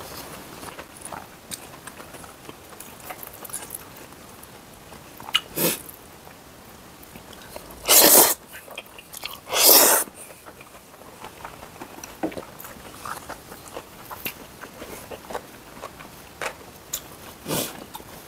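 Close-miked eating: chewing and small clicks of metal chopsticks against dishes while eating stir-fried soondae and buckwheat noodles, with a few short, loud noisy bursts, the two strongest close together around the middle.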